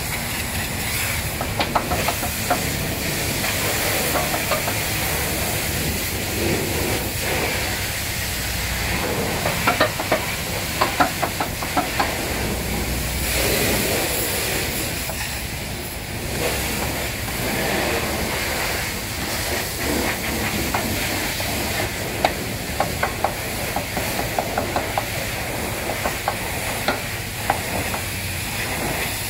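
High-pressure washer spraying water against a truck, a steady hiss with many short crackling clicks scattered through it.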